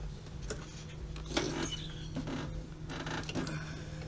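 Rubber vacuum hose being worked by hand onto the wastegate actuator's fitting: several short creaking, rubbing scrapes over a steady low hum.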